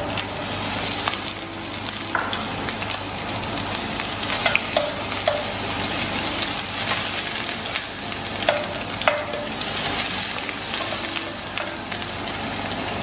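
Sliced red onion sizzling in hot oil in a stainless steel pan, the sizzle starting suddenly as the onion drops in. A wooden spoon stirs it, with scattered light clicks against the pan.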